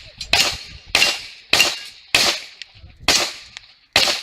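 Handgun firing six single shots at a steady pace of about one every 0.6 s, with a slightly longer pause before the fifth shot; each shot is sharp and decays quickly.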